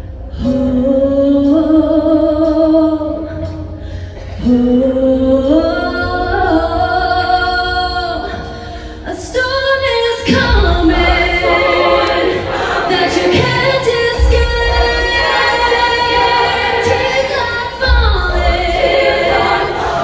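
High school show choir singing in harmony, at first in long held chords, then fuller and denser with low beats coming in about ten seconds in.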